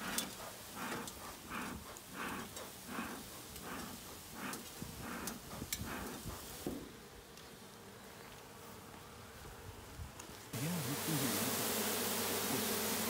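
A bee smoker's bellows puffing in a steady rhythm, about one puff every 0.7 seconds, blowing smoke into a package of honeybees to calm them. About ten seconds in, the loud steady hum of the packaged Italian honeybees takes over.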